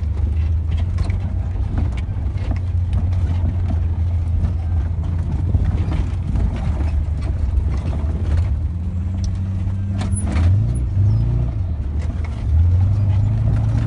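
Vehicle engine running steadily as it drives a rough dirt track, heard from inside the cab, with scattered knocks and rattles from the bumpy ground. The engine note wavers about ten seconds in and runs louder from about twelve seconds.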